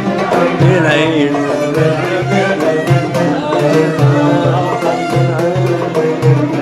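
Instrumental passage of Arabic music: a violin plays a wavering, ornamented melody over oud and a steady percussion beat.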